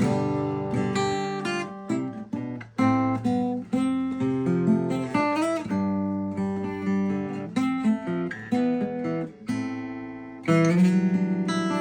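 Seagull S6 Folk acoustic guitar, freshly given a standard setup, played with chords strummed and picked. Near the end, after a brief drop in loudness, a full chord is struck and left ringing.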